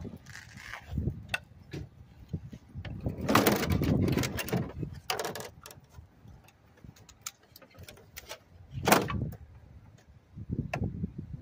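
An air conditioner's casing being worked loose and pulled off by hand: scraping and rattling with scattered knocks, the longest scrape about three to five seconds in and a sharp clatter about nine seconds in.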